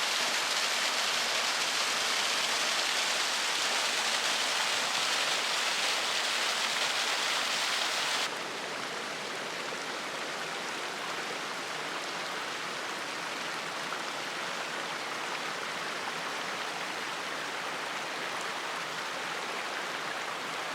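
Steady rush of running water, stepping down abruptly to a quieter level about eight seconds in.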